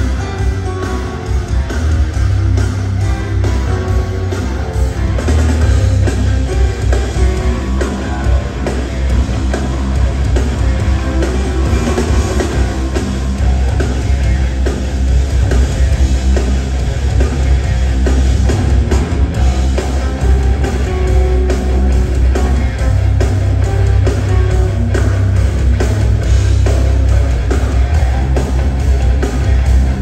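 A live rock band playing through a PA during a sound check: drum kit and electric guitars, with a heavy, boomy low end.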